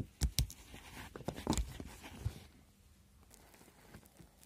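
Hog ring pliers snapping metal hog rings closed to fasten a car-seat cover: a handful of sharp metallic clicks over the first two seconds or so, then quieter rustling of the fabric being handled.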